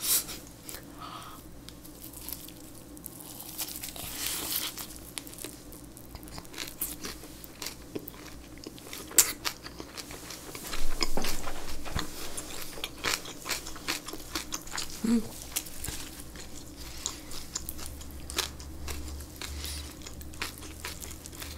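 Close-miked chewing of a big lettuce wrap of boiled pork belly with kimchi: wet chewing broken by many crisp crunches from the lettuce and kimchi, with a louder run of crunching about halfway through.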